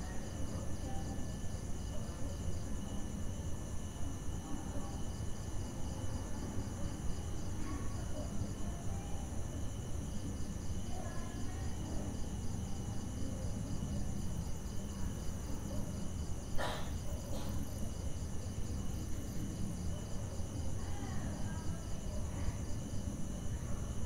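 Crickets chirping steadily in several high, pulsing tones over a constant low rumble. A single sharp click sounds about two-thirds of the way through.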